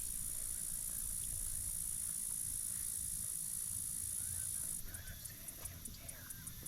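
Insects in the marsh: a steady high-pitched buzzing that cuts off suddenly about five seconds in, leaving rhythmic chirping at about four a second. Faint bird calls sound underneath.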